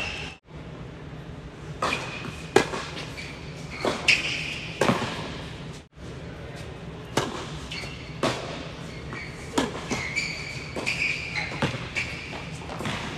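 Tennis balls being struck by rackets and bouncing on an indoor hard court, each sharp pock echoing in the large hall. There is a hit every second or so, with two brief dropouts in the sound.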